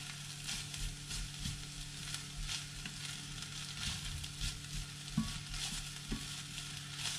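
Instant noodles with beef and chili sizzling in a non-stick frying pan while being stirred and turned with a spatula, a steady sizzle broken by repeated short scrapes and tosses.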